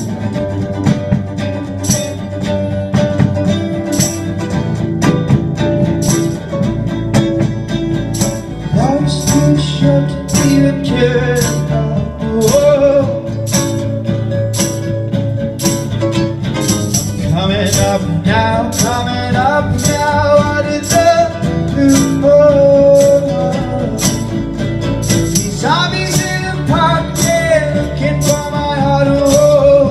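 A rock band playing live: guitars, bass and drums with regular cymbal or tambourine hits. A wavering melody line, sung or played on lead guitar, comes in over the band about nine seconds in.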